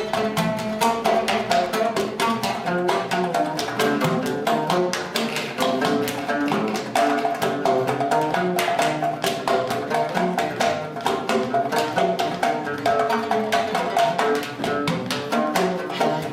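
Instrumental music with fast percussion strikes over a pitched melody.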